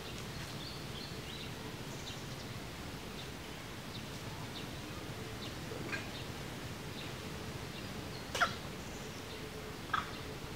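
Outdoor ambience with a few short, sharp animal calls; the loudest comes about eight seconds in, with another near the end.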